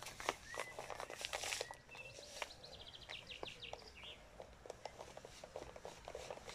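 Granulated sugar being poured from a plastic sugar bag into a plastic drum of cherries, heard as faint crinkling and scattered crackles. A bird chirps a quick series about three seconds in.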